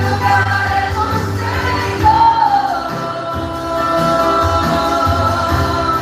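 A gospel worship band playing, with sung vocals over a bass line; about two seconds in, one voice holds a note that bends downward.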